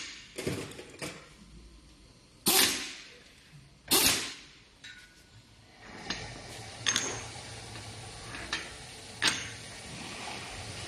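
Metal mould blocks and parts knocked and set down on a steel workbench: a series of sharp, ringing clanks, the loudest about two and a half and four seconds in. A steady hiss comes in about six seconds in, under lighter knocks.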